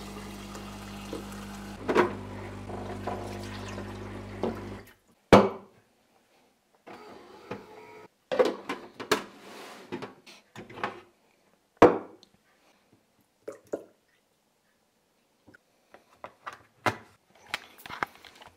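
Kitchen tap running into a plastic cup with a steady low hum, cutting off abruptly about five seconds in. Then scattered sharp clicks and knocks, loudest about five and twelve seconds in, from handling the cup and a Saeco Cafe Prima espresso machine.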